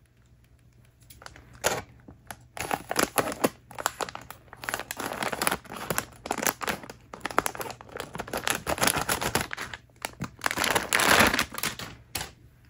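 Clear plastic bag crinkling and crackling in irregular bursts as it is handled, cut open with scissors and a plush toy pulled out of it. It starts about a second in.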